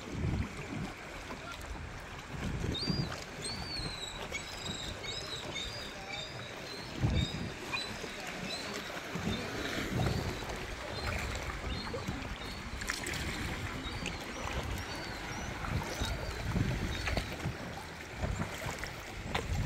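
Kayak paddle strokes and water splashing and lapping at the hull, with wind rushing on the microphone. Small high chirps, like birds, run from about three seconds in until about twelve.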